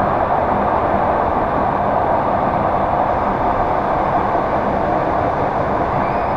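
Russian suburban electric train (elektrichka) running at speed, heard from inside the carriage: a steady rumble and hiss of wheels on rails and running gear.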